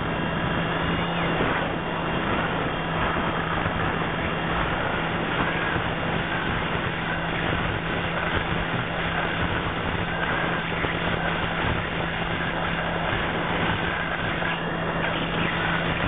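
An RC aircraft's motor and propeller heard through its onboard camera's microphone: a steady drone with a constant low hum over dense, even noise, holding the same pitch throughout.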